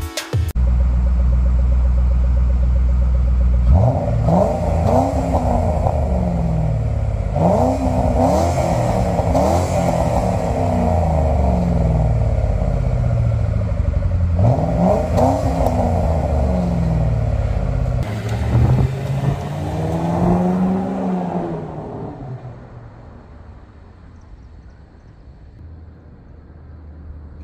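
Lincoln Mark VIII's 4.6-litre DOHC V8 accelerating, its pitch climbing and then dropping at each upshift, several times over, after a few seconds of steady drone. It fades to a quieter hum near the end.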